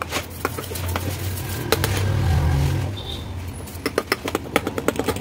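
Steel spoon clinking and scraping against a small steel bowl as moong dal batter is beaten in one direction, the clicks coming quick and close together near the end. A steady low rumble runs underneath.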